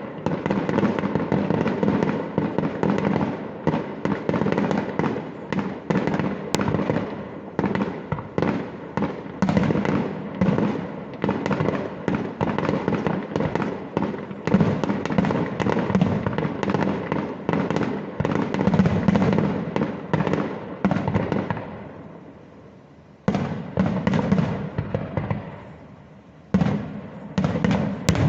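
Fireworks display: a dense, continuous volley of bangs and crackling shells. It dies down about three-quarters of the way through, then resumes with fresh bangs a second or so later.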